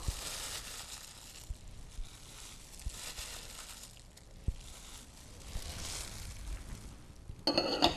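Faint handling sounds, a soft rustle and a few light taps, as soaked sliced shiitake mushrooms are tipped from a bowl into a glass saucepan of broth, over a low hiss.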